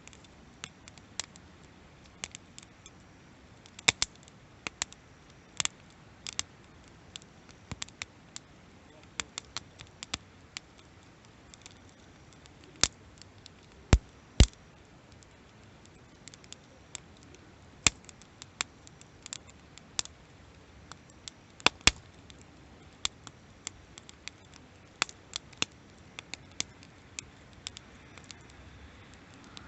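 Wood campfire crackling: irregular sharp pops and snaps, a few much louder than the rest, over a faint steady hiss of burning.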